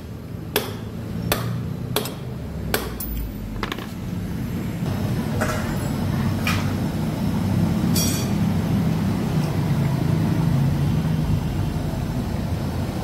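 A hammer striking a steel drift to knock a bearing out of a Yamaha X-Ride scooter's final-drive gearbox cover: about six sharp metallic knocks, roughly one a second, in the first four seconds. After that a steady low vehicle rumble takes over, with a few fainter clinks.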